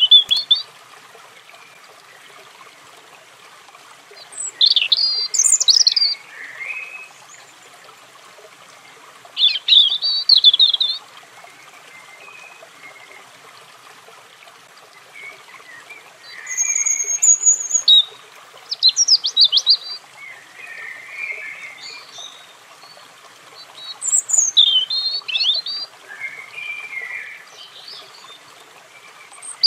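European robin singing: short, high, thin warbling phrases of a second or two, about six of them, each followed by a pause of a few seconds, over faint steady background noise.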